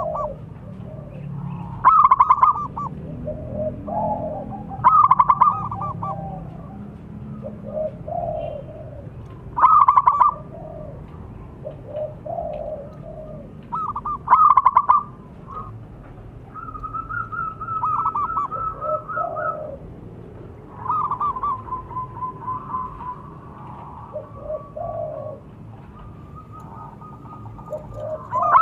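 Zebra dove (perkutut) cooing its staccato song. A loud, rapidly pulsed call comes every three to five seconds, with softer, lower coos between. Longer, even trills follow in the second half.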